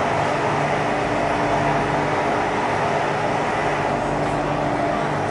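CR400BF high-speed train's traction motors humming in a few steady tones over the even rolling and running noise of the moving train, heard from the vestibule between cars.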